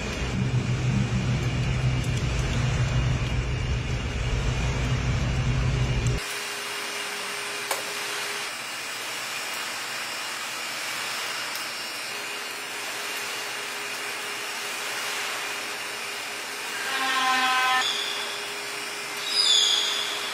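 Steady machine hum and hiss, low and heavy for about six seconds, then cutting off abruptly to a thinner hiss with a faint steady tone. Near the end come a short pitched call and then a brief louder burst.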